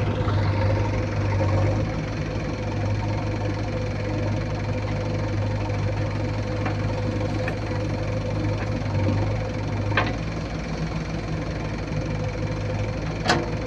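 Heavy diesel engine running steadily at a low, even pace, with two short sharp knocks about ten and thirteen seconds in, the second one louder.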